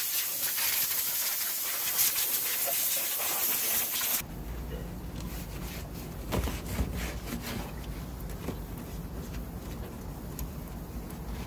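Compressed air blasting from an air hose blow gun, a loud steady hiss that cuts off suddenly about four seconds in. After it, quieter rubbing and a few light clicks as a shop rag wipes down the metal of the front suspension.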